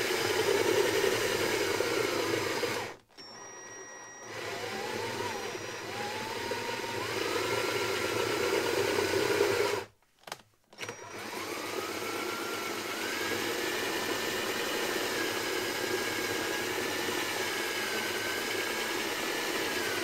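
Cordless drill turning the threaded rod of a home-made table saw's rise-and-fall mechanism, lowering and then raising the circular saw. The drill's whine climbs and dips with the load. It stops about three seconds in, starts again a second later, pauses briefly around ten seconds in, then runs steadily again.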